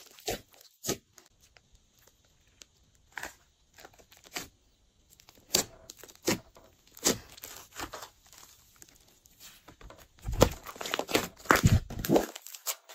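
Glossy slime being pressed and stretched by hand, giving irregular sticky pops and clicks that come thick and fast near the end.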